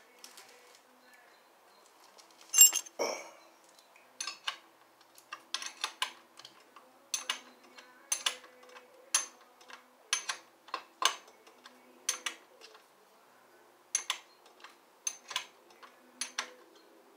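Metal hand tools and fasteners clinking against the metal parts of a motorcycle as it is worked on: irregular sharp clinks, about one or two a second, the loudest cluster about two and a half seconds in.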